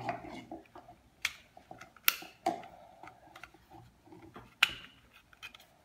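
Scattered plastic clicks and taps from a small battery-powered handheld bag sealer being handled and snapped shut, the sharpest clicks about two seconds and four and a half seconds in.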